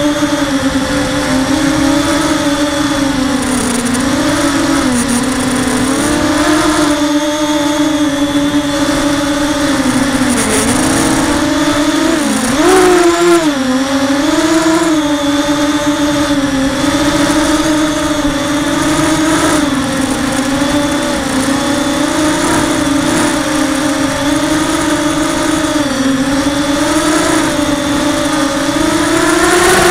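Mini FPV quadcopter's brushless motors and propellers whining steadily, picked up by the onboard camera, the pitch rising and falling with the throttle, with a quick sharp rise about halfway through and another at the end.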